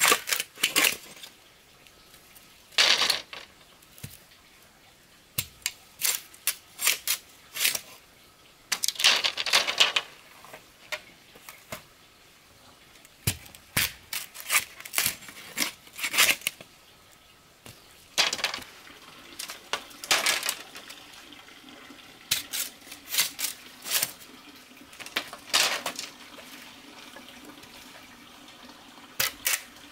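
Irregular knocks, clinks and short scrapes of hands working with utensils and dishes, with some water sounds in between. A faint low hum comes in a little past halfway.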